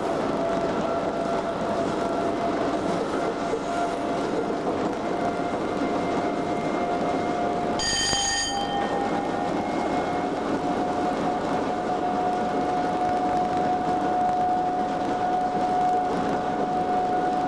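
Cab noise of a Class 87 electric locomotive running at speed: a steady rumble of wheels and traction equipment with a high whine that rises a little in pitch in the second half. A single short bell ding about halfway through.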